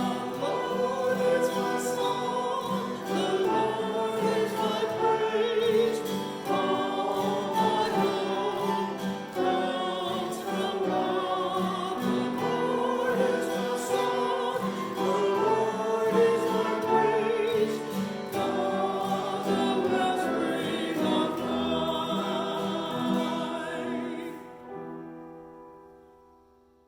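Sacred choral music: voices singing held chords that change every second or two, fading out over the last few seconds.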